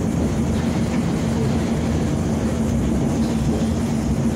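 Vintage BMT AB Standard subway car running at a station: a steady low rumble with a constant hum.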